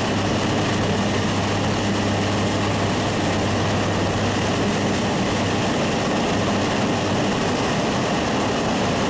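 Skydiving plane's propeller engine running loud and steady on the takeoff run, heard from inside the cabin along with the rush of air; its low hum becomes less distinct about halfway through.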